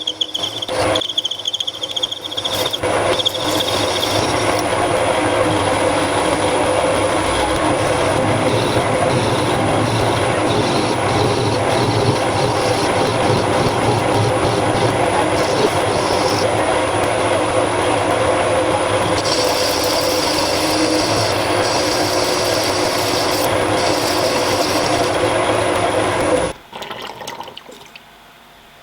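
Shed-built CNC machine tool running a cut on a metal part: a steady, loud mechanical running noise with a thin high whine. It stops about 26 seconds in.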